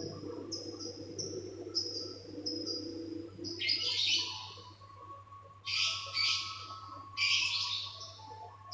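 A bird calling: a quick run of short, high chirps, then three louder, harsher calls about a second and a half apart. A faint steady hum lies underneath.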